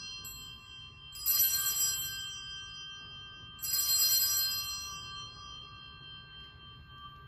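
Altar bells rung at the elevation of the host during the consecration. There are two rings, about a second in and three and a half seconds in, each starting sharply with a bright clash and then fading slowly. The tail of a ring from just before is still sounding at the start.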